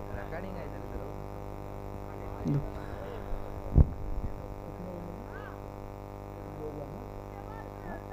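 Steady electrical mains hum, with faint distant voices and a single sharp thump a little under four seconds in.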